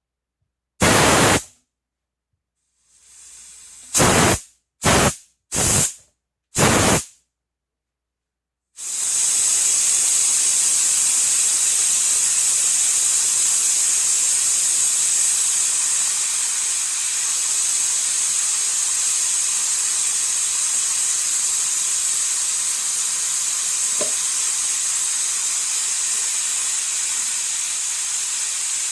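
Compressed air from the Mitsushi XH-6009L air compressor hissing out of a nozzle: five short blasts in the first seven seconds or so, then a steady continuous hiss from about nine seconds in that eases off slightly toward the end.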